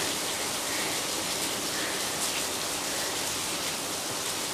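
A steady, even hiss, with a frightened woman's faint short breaths heard over it now and then.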